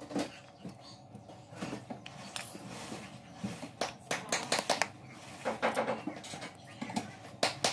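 Rustling, creaking and scattered clicks of a synthetic-leather shoe upper being pulled and folded over a shoe last by hand. There are several busier clusters of handling noise in the middle and a sharp click near the end.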